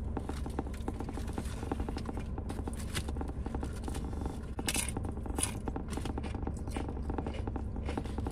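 Close-up chewing of a bite of toasted Subway ham sub: rapid wet mouth clicks and smacks, with a few brief crisp crackles about halfway through. A low steady hum runs underneath.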